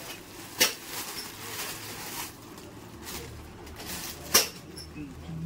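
Clear plastic packaging rustling and crinkling as a bundled nylon fishing net is handled and unwrapped, with two sharp snaps, one about half a second in and a louder one near the end.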